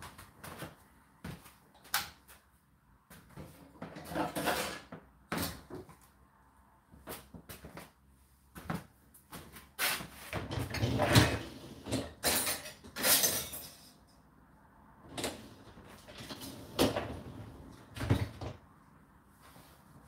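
Dishes and utensils being loaded into a Whirlpool dishwasher's racks: irregular clicks, knocks and clatters of plastic, crockery and metal against the wire racks, with a denser run of knocking and rattling about ten to thirteen seconds in.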